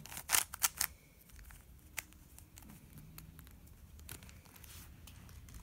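Plastic dodecahedron speed puzzle being turned by hand: a quick run of sharp clicks in the first second, then a few faint scattered clicks of the layers turning and catching.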